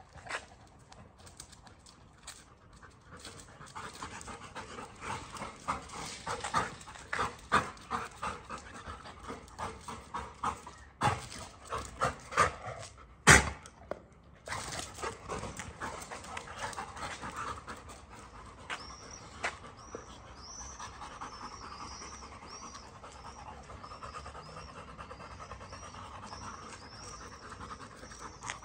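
Labrador retrievers panting in rapid breaths while mating, the panting loudest in the first half. A single sharp knock comes about thirteen seconds in, and in the second half a repeating high chirping runs over softer panting.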